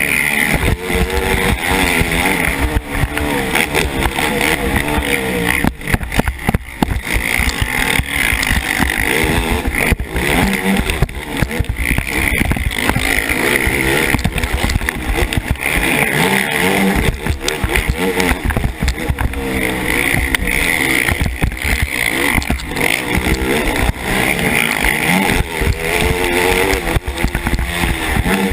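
KTM 450 SX race quad's single-cylinder four-stroke engine at racing revs, its pitch repeatedly rising and falling as the rider works the throttle and gears, with wind rumble on the helmet-mounted microphone. The engine briefly drops back about six seconds in.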